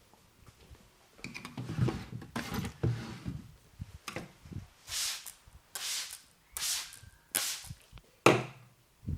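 Massage strokes from the masseur's hands on the client's head and back: a quick run of rubbing and patting strokes, then five separate swishing strokes about a second apart, ending in a dull thump.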